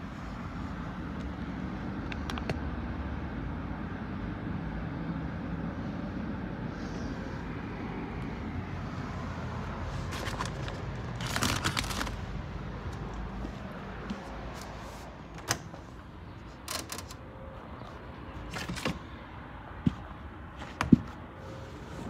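Mini tumble dryer running with a steady low hum. In the second half, a few sharp clicks and knocks.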